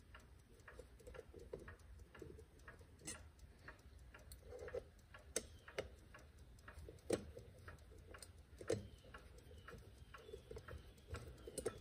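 Faint, scattered metallic clicks and light scraping of a screwdriver turning small screws in a brass clock case, with a few sharper clicks, and faint clock ticking underneath.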